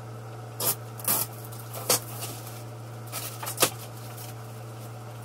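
Clear protective plastic wrap crinkling and crackling as it is peeled off the sides of a 3D printer's enclosure, about five short sharp crackles, over a steady low hum.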